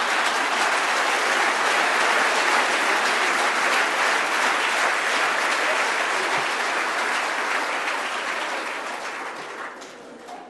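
Congregation applauding, the clapping holding steady and then dying away over the last two seconds.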